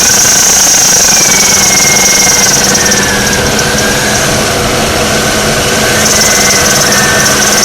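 2002 Oldsmobile Alero engine running with a high, steady whine from the alternator, the sign of a failing alternator bearing. The whine weakens about halfway through and comes back strongly near the end.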